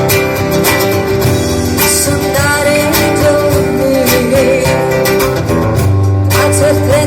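Live acoustic band music: a woman singing over strummed acoustic guitars, with a steady beat of drum and percussion hits.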